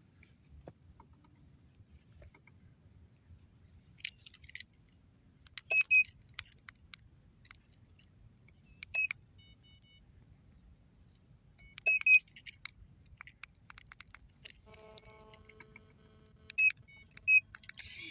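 Short, sharp high-pitched chirps, often in quick pairs, coming every three seconds or so. Light clicks and rattles are scattered between them, and a faint steady hum runs for a second or two near the end.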